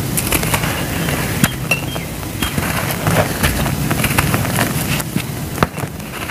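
Dry sand-and-cement lumps crumbled in the hands, with a dense gritty crackle of many small snaps as pieces break, and grains and dust pouring onto loose sand.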